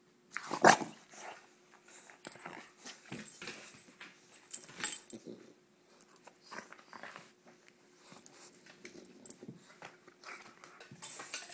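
English bulldog vocalizing in irregular bursts during rough play with her owner, the loudest about half a second in. Her collar tags jingle now and then.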